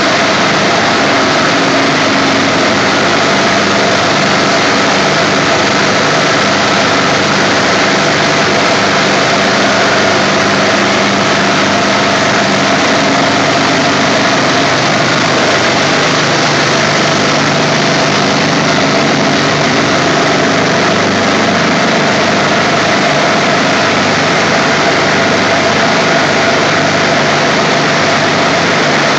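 Piston (reciprocating) compressors driven by high-voltage synchronous motors running: a loud, constant machinery roar with steady hum tones, whose lower tones shift slightly about halfway through.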